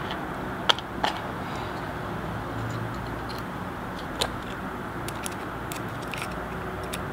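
A few sharp, light clicks and ticks of small knife screws and a small screwdriver being handled against a folding knife's handle during reassembly, over a steady background hiss.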